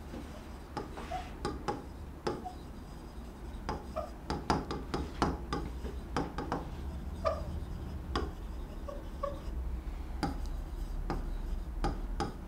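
Stylus writing on the glass screen of an interactive display: an irregular run of sharp taps and short scratches as each stroke of handwriting lands, over a low steady hum.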